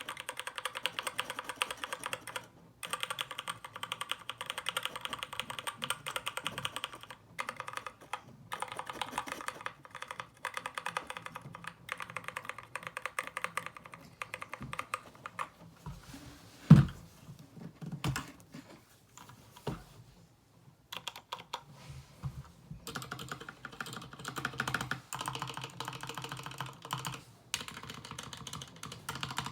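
Typing on an SK61 60% mechanical keyboard with lubed Gateron Brown tactile switches and pudding keycaps: a dense, rapid run of key clacks with a few brief pauses. About halfway through the typing thins to scattered key presses with one loud thump, then turns dense again for the last several seconds.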